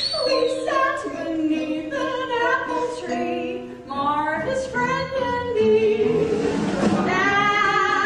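A woman singing a musical-theatre number, with vibrato on some held notes.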